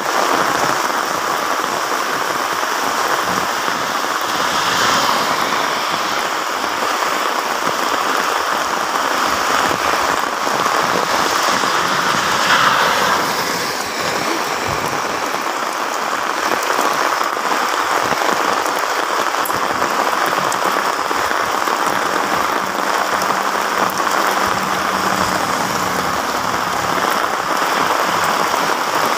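Heavy typhoon rain pouring onto a road, a steady loud hiss of rain on the wet surface. A short swell about halfway through as a truck drives past on the wet road.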